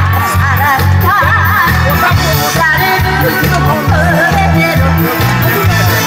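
A woman singing a Korean song with a wavering vibrato into a microphone through stage loudspeakers, over a backing track with a steady bass beat.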